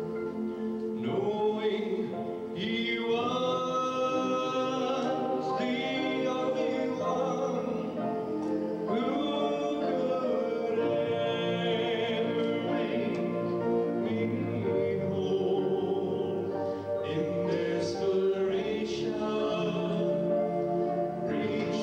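A male gospel vocal group of five singing in close harmony through handheld microphones, holding long notes.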